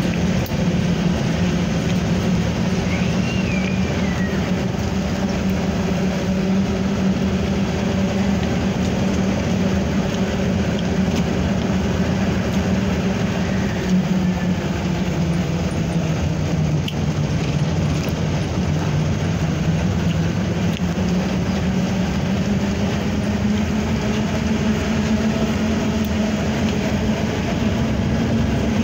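Engine of a moving vehicle running steadily on the road, a continuous low drone whose pitch drifts slowly with speed and rises a little near the end, over steady road and wind noise.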